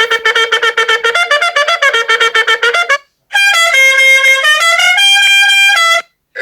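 Trumpet sound effect: a fast run of short staccato notes for about three seconds, then, after a brief break, a string of longer held notes stepping up and down in pitch.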